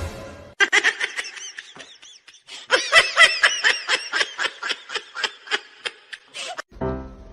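A person laughing in high giggles: a short run, then after a pause a longer, louder run of quick giggles at about four a second.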